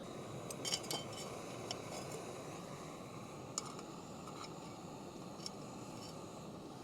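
Metal camping cookware and a utensil clinking lightly: a quick cluster of clinks about a second in, then a few single ones spread through the rest, over a steady rushing background.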